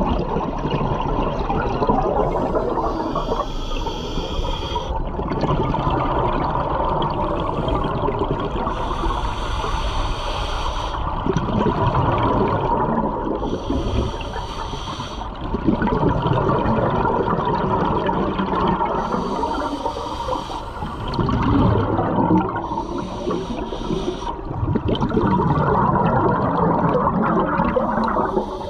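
Scuba diver breathing through a regulator underwater: a hiss on each inhale alternating with the bubbling of exhaled air, about one breath every five seconds.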